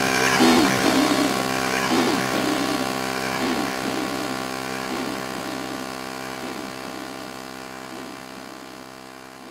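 Background music: a sustained droning chord with soft pulses about every second and a half, fading out steadily.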